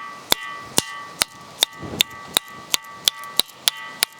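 Ringing rock struck over and over with a hand-held stone: about ten sharp clinks, two to three a second, each leaving a steady metallic ring. It sounds like an empty vessel being tapped, as if the boulder were iron or steel rather than stone.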